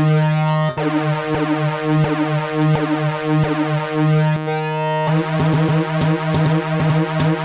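Synthesizer played through an Earthquaker Devices Pyramids flanger pedal, likely in its trigger-down mode: a held chord with a steady ticking pulse and repeated flange sweeps. About five seconds in, the sweeps come quicker and denser.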